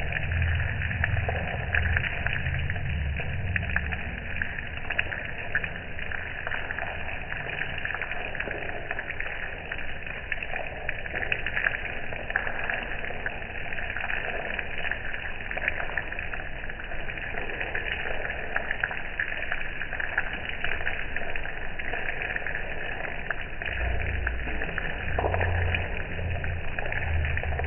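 Rain pattering steadily as a dense crackle of drops, with low rumbles near the start and again near the end.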